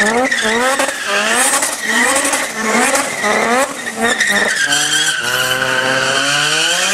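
Rotary (Wankel) engine of a car revving hard in quick repeated rises, about two a second. About four and a half seconds in, it settles into one longer pull that climbs steadily in pitch. A steady high tyre squeal runs underneath.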